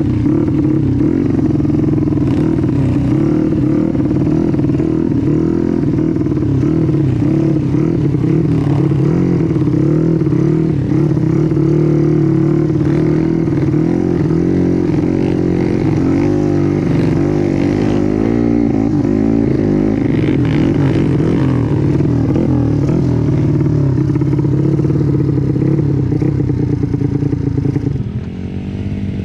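Small single-cylinder trail motorcycle engine running under load, its revs rising and falling continually. Near the end the engine drops off briefly, then revs up again.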